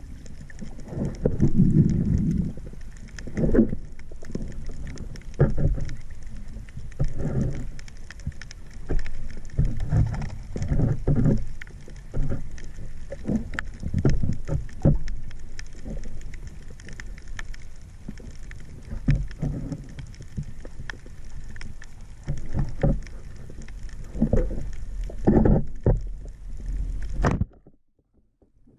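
Water sloshing and splashing in irregular muffled swishes and thumps, which cut off suddenly near the end.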